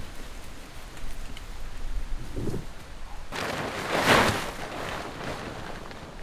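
Strong wind rumbling and hissing, with a louder rush of noise that swells and fades about halfway through.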